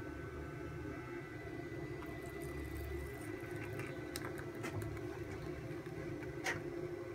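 Steady low kitchen hum with a few faint clicks in the second half and one sharper tick about six and a half seconds in, as thick jaggery syrup is poured from an aluminium pot into a steel bowl.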